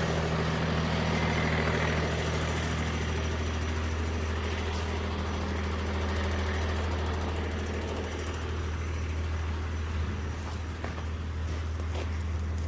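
Diesel engine of a large rollback tow truck idling steadily, freshly started.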